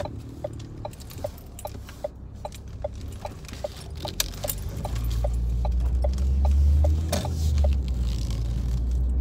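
Car turn-signal indicator ticking evenly, about two and a half ticks a second, stopping near the end. A low engine and road rumble swells from about halfway through.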